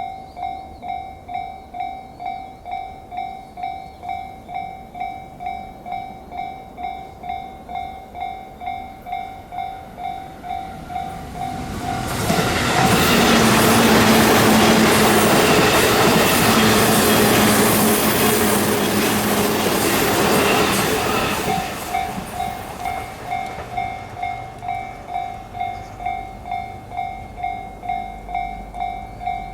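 Japanese level-crossing alarm bell ringing at about two strikes a second. About twelve seconds in, an electric train passes at speed, its rushing and clattering drowning the bell for about nine seconds, and then the bell is heard again.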